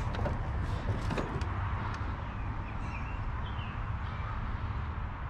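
Outdoor background of a steady low rumble, with a few light clicks and knocks in the first two seconds and faint short chirps around the middle.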